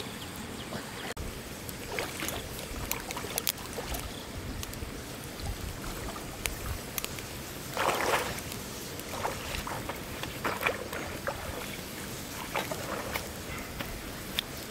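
Water splashing and sloshing as a person wades out of a river through the shallows, loudest about eight seconds in, over the steady rush of the river. Short sharp crackles from a wood fire burning under a wok run through it.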